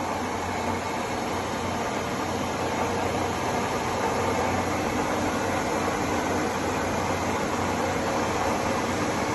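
Induma vertical milling machine running steadily: an even mechanical hum with a hiss, growing slightly louder over the seconds.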